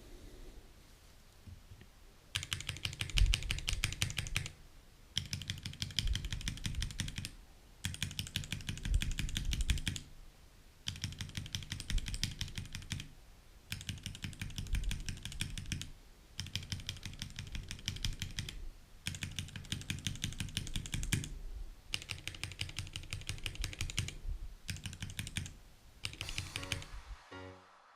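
Mechanical keyboard switches being typed on in rapid bursts of clicking keystrokes, about two seconds per burst with short pauses between. Music starts near the end.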